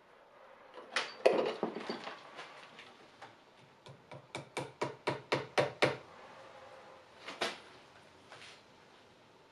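Small hammer tapping on a knife's handle and pin fitting, held in a vise. A few louder knocks come about a second in, then a quick even run of about nine light taps, about five a second, and two more single taps near the end.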